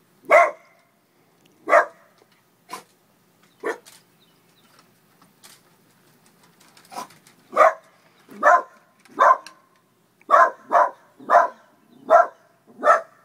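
A dog barking in short single barks: four well spaced barks, a pause of about three seconds, then a quicker run of about nine barks, roughly one every two-thirds of a second.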